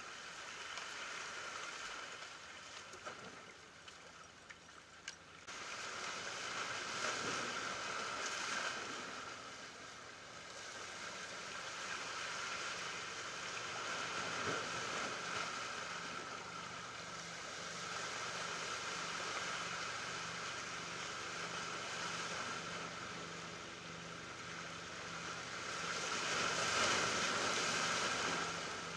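Small ocean waves surging over shoreline rocks and draining back, the wash swelling and easing every few seconds and loudest near the end.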